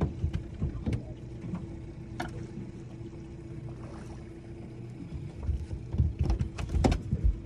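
Small boat's motor humming steadily, with a few sharp clicks, then a run of low thumps and knocks on the boat in the last two seconds or so.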